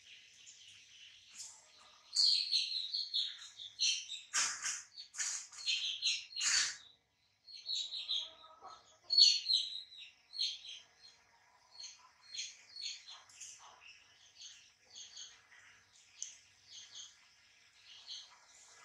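Small birds chirping: many short, high chirps, busiest and loudest from about two to seven seconds in, then a steady run of softer chirps.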